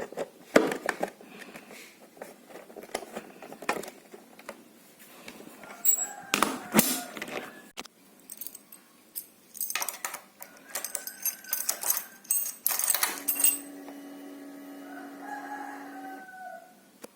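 Scattered sharp clicks and knocks, then a rooster crowing for about three seconds near the end.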